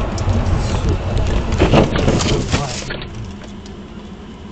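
A car sliding off a slushy road into a snowbank: loud rumbling from the tyres and body, with a burst of noise as snow strikes the car about one and a half seconds in. It goes quieter after about three seconds, once the car has stopped in the bank.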